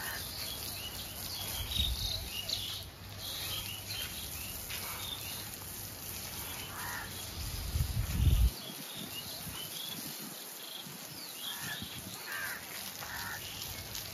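Outdoor ambience: birds chirping and insects over a steady high hiss, with a low rumble that swells and cuts off suddenly about eight seconds in.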